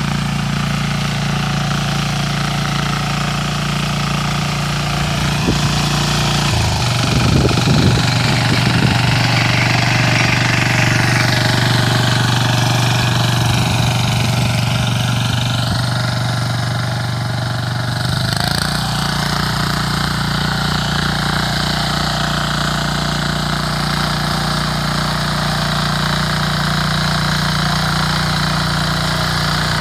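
Small petrol engine of a motor hoe (rotary tiller) running steadily while it works hard soil. A burst of rapid knocking about 7 to 9 seconds in, and the engine note shifts about 18 seconds in.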